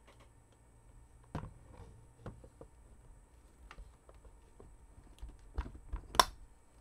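Scattered clicks and light knocks as an airsoft MK46 replica is handled and its box magazine is fitted underneath, with a single sharp click near the end louder than the rest.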